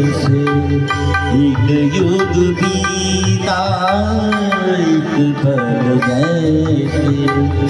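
A man singing a Hindi film song in classical style into a microphone, holding long ornamented notes with vibrato over recorded backing music.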